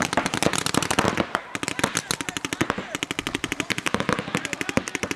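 Paintball markers firing fast strings of shots, many sharp pops a second, overlapping without a break.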